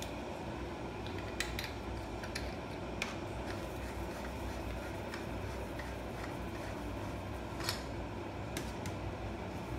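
Steady low room hum with a few light clicks and taps, about four in all, from small metal items being handled on a counter.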